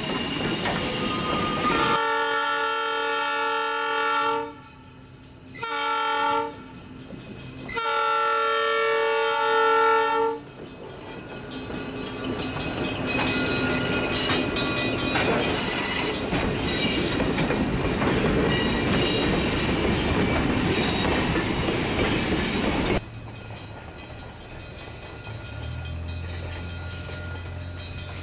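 Locomotive horn sounding a chord in a long blast, a short blast and another long blast over the rumble of passing railcars. Then coaches roll by with wheels clicking over the rail joints. After a sudden drop in level, a distant train's low engine hum takes over.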